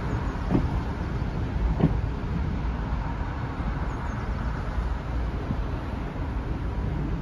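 A train of passenger coaches rolling slowly past as it pulls away behind a Class 03 diesel shunter, with a steady low rumble. Two clunks from the wheels come about half a second and nearly two seconds in.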